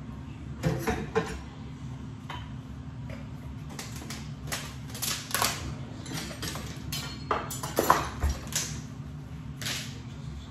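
Kitchen handling sounds: a string of irregular knocks and clinks from dishes and utensils being moved, with a steady low hum beneath.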